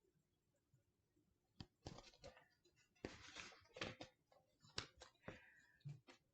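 Faint rustling and small clicks of paper being handled, as the pages of a picture book are turned. The first second and a half is near silence.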